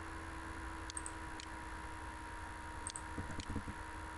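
Computer mouse button clicking: four short, sharp clicks in two pairs, about a second in and again near three seconds, over a steady electrical hum.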